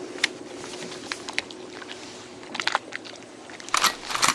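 Light scattered clicks of a spinning reel and line being handled on a float-fishing rod, then two short loud rustling bursts near the end as the reel's bail is snapped shut and the rod is swept up to set the hook on a bite.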